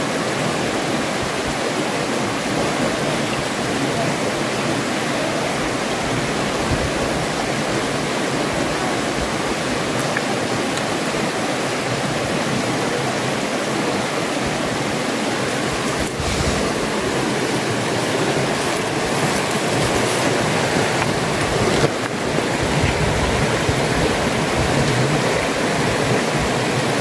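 Steady rush of water running over the rocks of a shallow forest stream.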